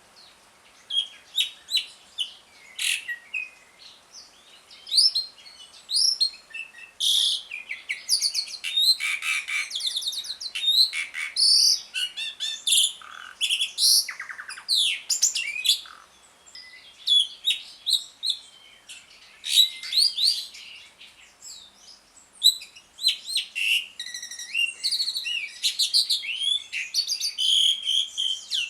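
Javan pied starling (jalak suren) calling in fast runs of varied harsh chattering and whistled notes, in bursts broken by short pauses.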